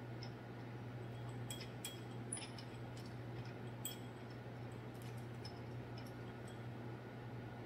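Scattered light metallic clicks and clinks as a metal grain-mill attachment is handled and fitted onto a KitchenAid stand mixer's attachment hub, over a low steady hum.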